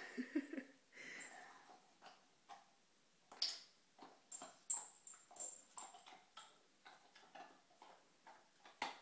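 A puppy gnawing and playing with a treat on a tile floor: irregular clicks and crunches, about one to three a second, with a short low dog sound right at the start.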